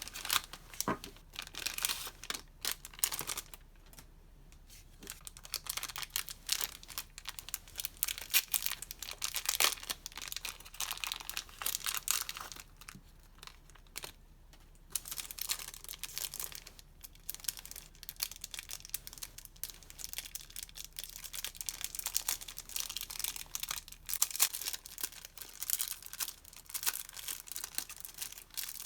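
Packaging being unwrapped and handled, irregular crinkling and rustling with short quiet pauses.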